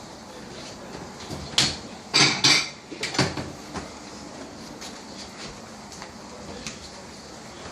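A short run of knocks and clatter, about one and a half to three seconds in, over a steady background hiss.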